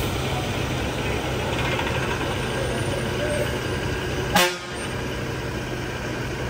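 Bus diesel engine idling steadily under bus-stand background chatter, with a brief sharp sound about four seconds in, after which it is a little quieter.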